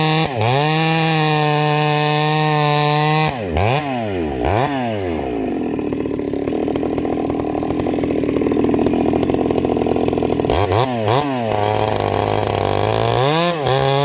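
Husqvarna 390 XP chainsaw with a ramhorn muffler, running loud at full throttle. Its pitch drops sharply a few times, then it pulls down into a cut for about five seconds with a rougher, lower note. It eases off and screams back up to full revs near the end.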